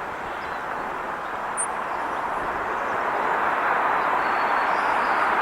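Road noise of a vehicle approaching: a steady rushing of tyres that grows slowly louder.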